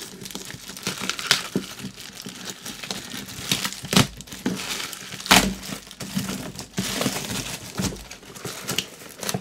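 Clear plastic shrink-wrap being crinkled and torn off a cardboard box by hand, a continuous rustle with sharp crackles every second or so.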